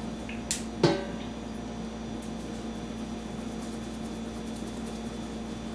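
Seasoning being shaken from a shaker bottle into an enamel steamer pot: a short rattling hiss, then a sharp knock just under a second in, and faint light ticks after, over a steady low hum.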